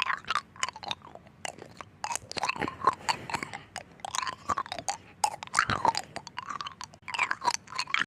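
Ice being chewed: a dense, irregular run of crunches and cracks with little squeaky bits as the pieces break.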